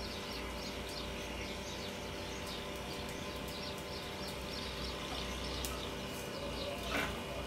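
Steady background ambience with a low hum and a regular run of high chirps, about three a second, and a brief falling sound near the end.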